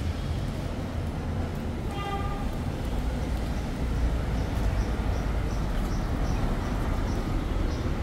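Street traffic: a steady low rumble of vehicle engines. About two seconds in there is a short horn toot, and in the second half a run of faint, quick high ticks, about three a second.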